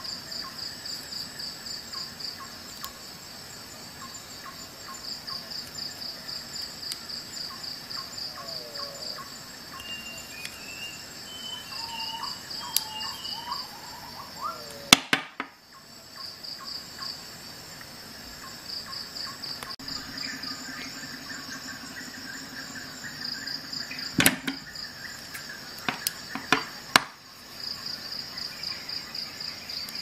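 A high, pulsing insect trill chirps on and off throughout. Over it, Leatherman Raptor Response folding shears click sharply several times as they are snapped open and shut: once about halfway, then in a quick cluster near the end.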